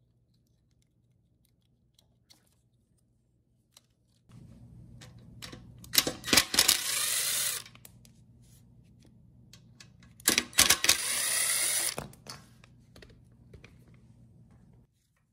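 Cordless drill/driver running in two bursts of about a second and a half each, its pitch sweeping as the motor speeds up and slows, backing out fasteners on a portable generator's generator head. A few small clicks come before and between the runs.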